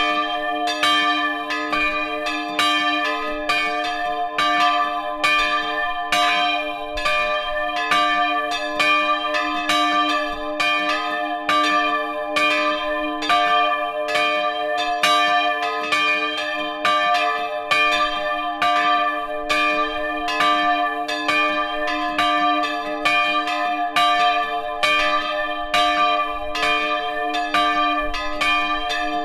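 Swinging bronze church bells ringing together as a full peal, heard up close in the belfry. Their clapper strokes overlap in a quick, uneven stream over a steady, sustained ringing hum.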